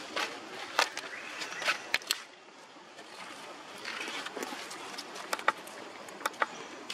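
Outdoor background noise with scattered sharp clicks and rustles, several in quick pairs, the loudest about five and a half seconds in.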